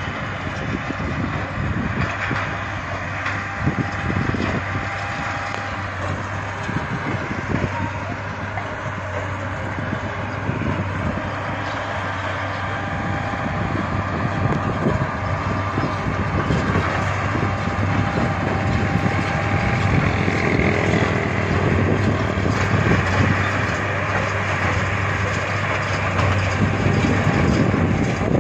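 Diesel tractor engine running steadily under load while it pulls a large square baler that is baling hay, with the baler's machinery working over it. The sound grows gradually louder as the rig comes closer.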